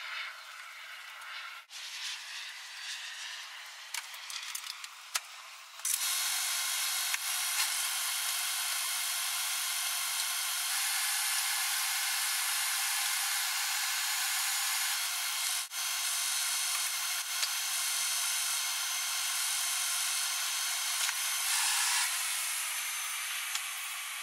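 Diesel engine of a 2008 GMC Sierra 2500HD pickup running, a steady hissing rush with faint steady tones in it. It comes in suddenly about six seconds in and eases a little near the end as the truck pulls the fifth-wheel camper away.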